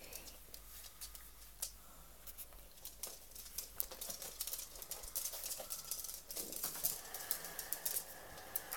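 Irregular light clicks and taps on a hard floor, growing busier about halfway through, with a faint thin high sound near the end.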